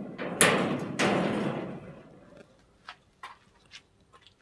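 Painted steel tray of a welded wire-mesh dog cage clattering and scraping against the cage, two loud rattles close together that fade over about a second, followed by a few light clicks.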